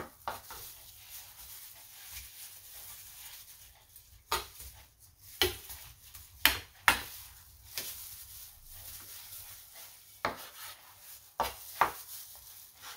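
Kitchen knife slicing squid into strips on a wooden cutting board, the blade knocking sharply on the board about eight times at irregular intervals.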